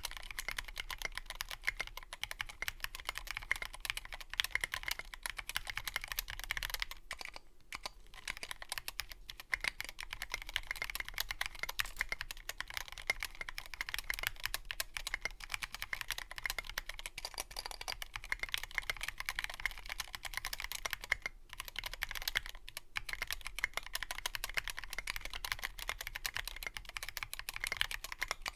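Steady typing on a custom 60% mechanical keyboard: a Revo One case with a sound-dampening mod, Tealio linear switches lubed with Krytox, grease-modded stabilizers and SA-profile Abyss keycaps. The stream of keystrokes is dense, with brief pauses about 7 seconds in and again about 21 seconds in.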